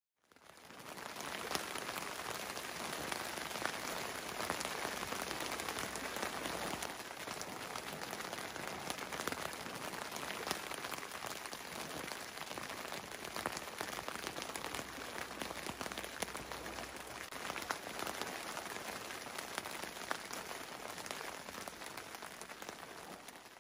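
Steady rain falling, many separate drops ticking on a surface, fading in at the start and out near the end.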